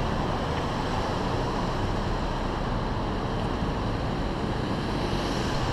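Steady street ambience: an even rushing of traffic noise and wind on the microphone, with no distinct events.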